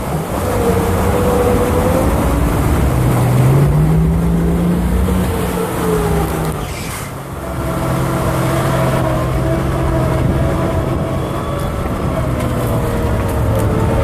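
Jeep's 4.0-litre inline-six engine pulling through a river crossing, with water splashing and rushing against the tyre and body through the first half. The engine revs up about four seconds in, the rush of water fades about seven seconds in, and the engine then runs steadily as the Jeep drives up onto the dry bank.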